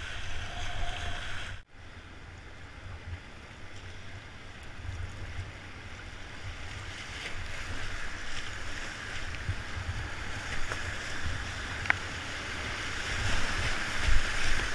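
Whitewater rapids rushing and splashing around a kayak, with wind rumbling on the microphone. The sound cuts out abruptly for an instant about a second and a half in, then builds and grows louder near the end as the boat runs into the waves.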